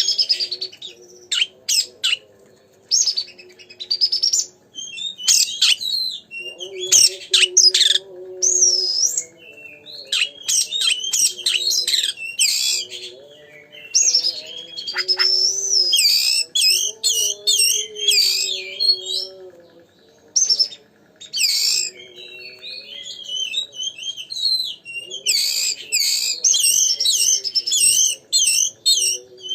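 Oriental magpie-robin (kacer) singing a loud, rich, fast-varying song of whistles, trills and sharp notes, in phrases broken by short pauses.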